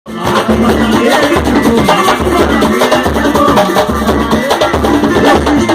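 Samba batuque music: a repeating low drum beat under busy lighter percussion, with pitched melodic parts on top.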